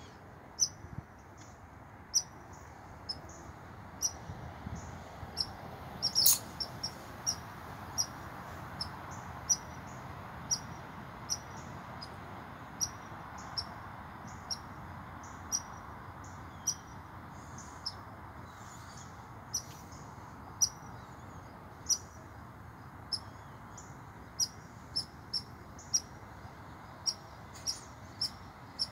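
American red squirrel giving short, high-pitched barking calls, about one a second and at times in quick runs, with the loudest bark about six seconds in. It is an alarm call aimed at a person close to its tree.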